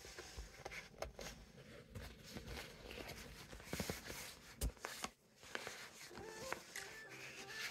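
Faint handling noise: soft rustles, light taps and clicks from a compression sock, a stiff sock-shaped sublimation jig and a paper transfer being moved and lined up by hand.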